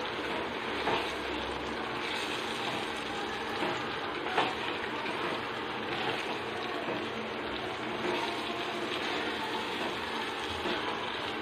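Thick ground masala paste frying in oil in a pan, a steady sizzle, as a spoon stirs it through, with a few light scrapes and knocks of the spoon against the pan.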